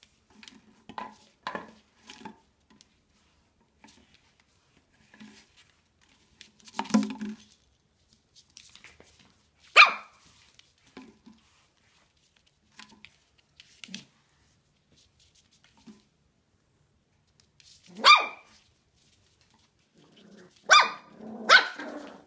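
Puppies yapping in short, scattered bursts. The loudest yap comes about ten seconds in, and several quick yaps follow one another near the end.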